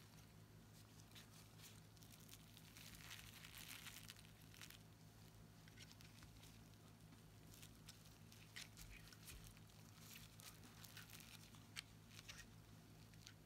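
Faint crinkling and rustling of a disposable glove and plastic wrap as a gloved hand handles dry conifer cones, with scattered small crackles, busiest about three to four seconds in and again through the second half. A low steady hum runs underneath.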